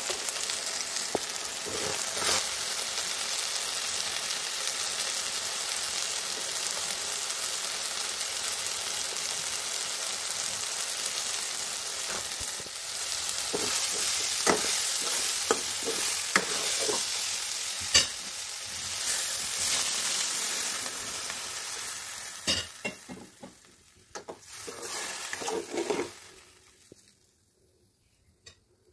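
Diced potatoes and green beans frying in oil and spices in a nonstick wok, with a steady sizzle and the scrape and tap of a metal spatula as they are stirred. The sizzle dies away near the end.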